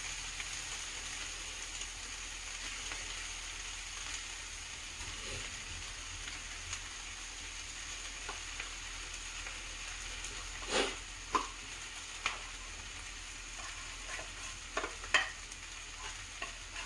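Diced potatoes and corned beef frying in a pan with a steady sizzle. From about ten seconds in, a metal spoon clinks and scrapes a few times against a tin can as the corned beef is scooped out.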